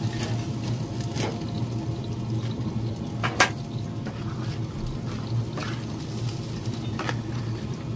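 Chicken wings sloshing and squelching as they are stirred through thin barbecue sauce in a saucepan with a spoon, with a few knocks of the spoon against the pot, the loudest about three and a half seconds in. A steady low hum runs underneath.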